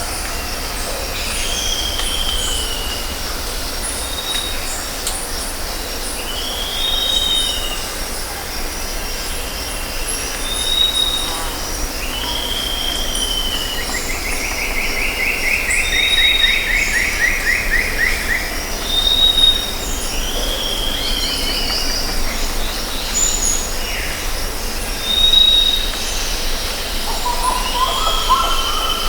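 Jungle ambience: birds whistling in repeated short calls, an arched whistle about every three seconds and a longer trill in the middle, over a steady high insect drone and a low rumble.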